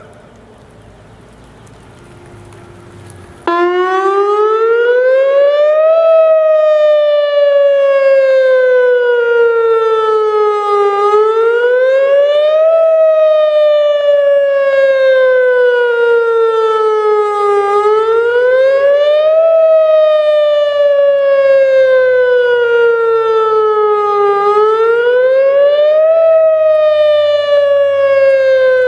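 Whelen WPS 2902 electronic outdoor warning siren sounding its wail tone for a test. It cuts in suddenly at full loudness a few seconds in, then rises quickly in pitch and falls slowly, again and again, about every six to seven seconds.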